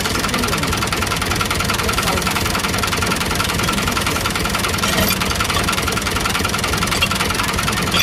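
Tractor diesel engine idling steadily, with a couple of brief metallic clinks as a heavy tow chain is handled and hooked onto the hitch.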